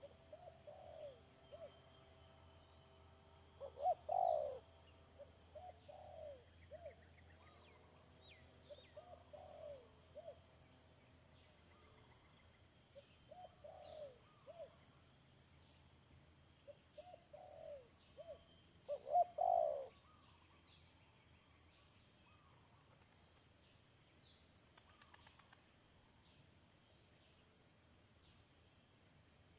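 Spotted doves cooing in repeated short phrases of low coos, loudest twice, about four seconds in and about two-thirds of the way through, then stopping. A steady high insect drone runs underneath.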